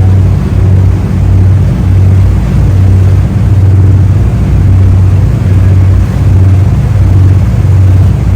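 Engine running steadily, a loud low hum with a faint regular pulse.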